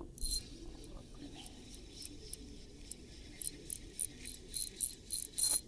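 Light spinning reel being cranked to retrieve the line, giving a run of small, irregular high ticks that come thicker and louder over the last two seconds.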